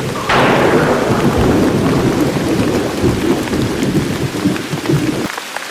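Thunderstorm sound effect: a sudden thunderclap just after the music stops, then rumbling thunder over steady rain. The rumble cuts off shortly before the end, leaving only the rain.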